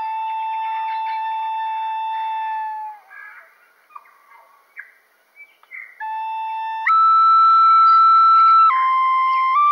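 A flute playing a slow melody of long held notes. It stops for about three seconds midway, then comes back in and steps up to a higher note.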